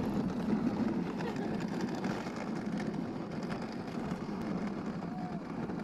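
Dog sled gliding over snow-covered lake ice: the runners give a steady rushing hiss.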